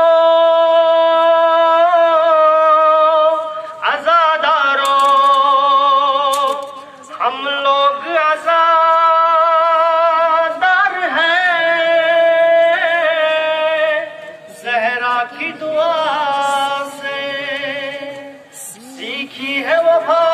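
A voice singing a nauha, a Shia mourning lament, in long held, wavering notes, phrase after phrase with short breaks between them.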